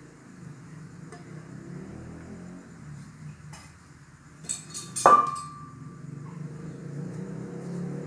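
A couple of light metallic clinks, then a sharp metal clank about five seconds in that rings briefly, over a low background hum.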